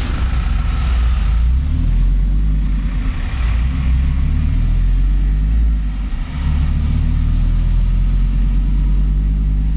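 Fiat Marea HLX 2.4's five-cylinder engine running loud with no exhaust system fitted, a deep rumble whose note rises and falls, easing briefly about six seconds in.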